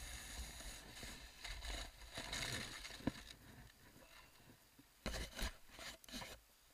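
Hammerhead sled sliding over groomed corduroy snow: a steady scraping hiss that fades as the sled slows, with a sharp click about three seconds in. Near the end come a few short crunches and knocks, then it goes quiet.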